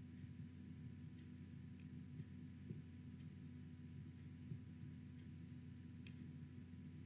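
Near silence: a low, steady electrical hum in the recording, with a faint click about six seconds in.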